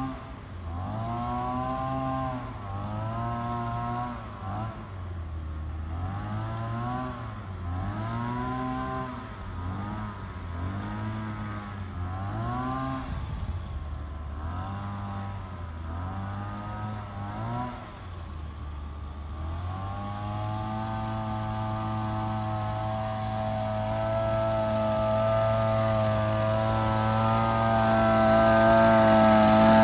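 Small petrol engine revving up and dropping back over and over, about once a second, then held at a steady high speed for roughly the last ten seconds.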